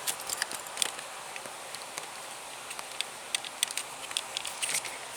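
Scattered light clicks and taps of the plastic car-stereo housing and its connectors being handled and worked loose, over a steady hiss.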